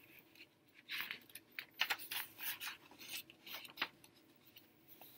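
Paper pages of a paperback picture book being turned and handled: a quick run of rustles between about one and four seconds in.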